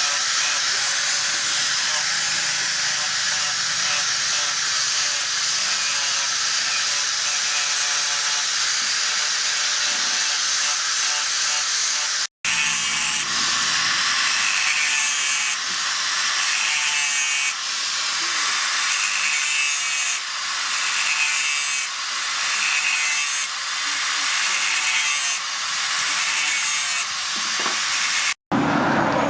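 Steady, loud abrasive scraping of metal being worked by a tool, cut off abruptly twice.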